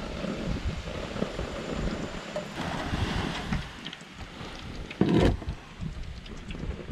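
Wind buffeting the microphone over vegetables sizzling in hot oil in a frying pan, with a brief loud thump about five seconds in.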